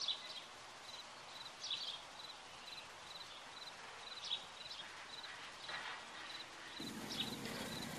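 Faint open-air countryside ambience: a soft steady hiss with a quick run of small high chirps, a few louder than the rest. The background grows fuller near the end.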